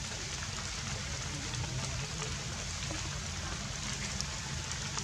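Light rain falling on leaves: a steady hiss with scattered faint drip ticks, over a low steady rumble.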